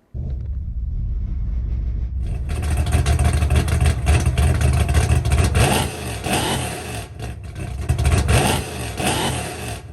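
Car engine running loudly and revving, with several rising revs in the second half.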